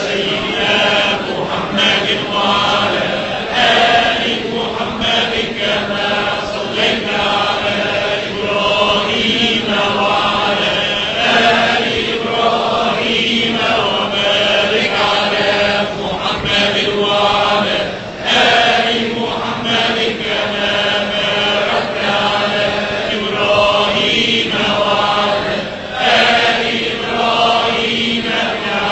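A group of voices chanting a prayer of blessing on the Prophet in unison, steady and unbroken.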